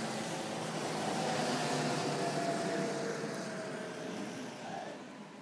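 A road vehicle passing, a steady wash of engine and tyre noise with a faint hum that fades away toward the end.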